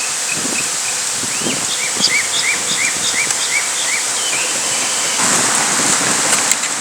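Steady outdoor hiss with a bird singing a run of about seven quick chirps, each rising then falling in pitch, in the middle. A passing vehicle's noise swells near the end.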